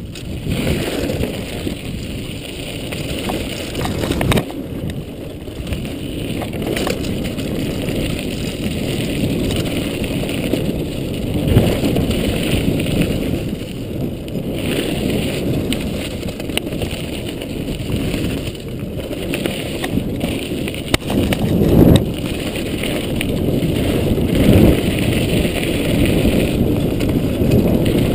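Mountain bike running fast down a dirt trail, heard from a chest-mounted action camera: a steady rumble of tyres over dirt and rocks mixed with wind, with a few sharp knocks and rattles from the bike over bumps.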